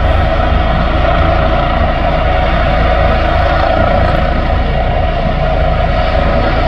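Air ambulance helicopter running on the ground during start-up with its rotor turning: a loud, steady whine over a low rumble.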